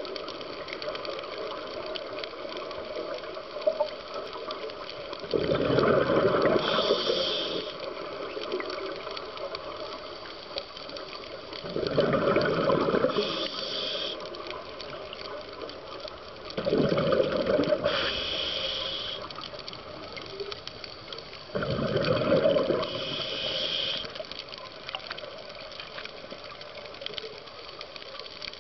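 Scuba diver breathing through a regulator underwater: four gushing bursts of exhaled bubbles, each about two seconds long and about five seconds apart, over a steady hiss.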